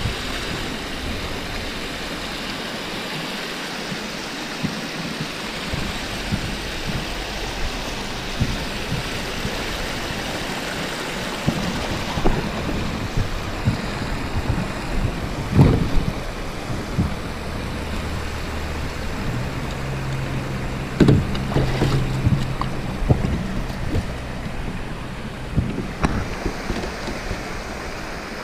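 Steady rush of flowing creek water, with scattered knocks and taps from about halfway on; a low hum joins in during the last several seconds.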